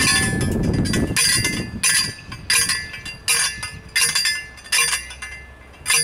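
Red manual post driver slammed down onto a 5-foot steel T-post, about seven ringing metallic clanks less than a second apart, hand-driving the post 18 inches into the ground.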